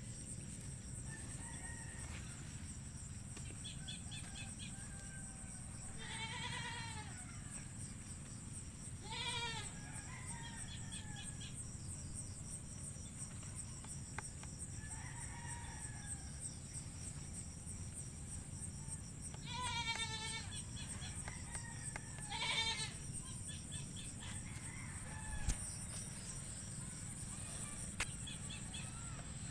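Roosters crowing four times, over a steady high-pitched drone of insects.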